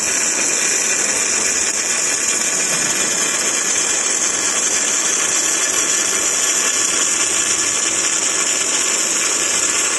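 The MIG welding arc of a six-axis robotic welder, burning steadily along a steel frame joint as a continuous, even hiss.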